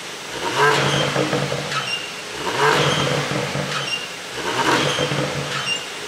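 2018 Porsche Panamera 4S twin-turbo V6 revved three times, about every two seconds, each blip falling away with pops and crackles from the exhaust on the overrun. This is the effect of an ECU tune made to produce exhaust pops.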